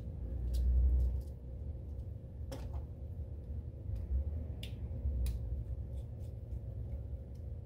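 Scattered small clicks and light handling noise as wires are worked into a green plug-in screw-terminal connector, over a low rumble and a faint steady hum.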